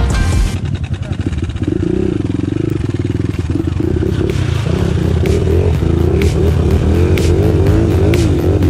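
Dirt bike engine running and revving up and down unevenly, its pitch wavering quickly over the last few seconds, with music underneath.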